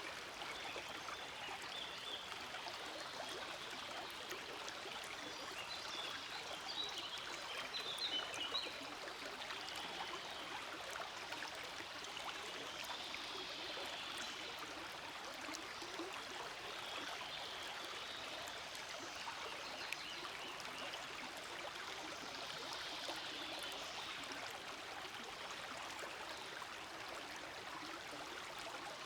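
Shallow forest stream flowing steadily, with a continuous rushing babble of water and small splashes and trickles over stones, briefly a little louder about seven to nine seconds in.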